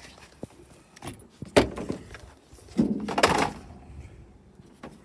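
Knocks and rattles of hands handling the stripped car's body and plastic pillar trim. The sharpest knock comes about a second and a half in, and a longer scraping rattle follows around three seconds in.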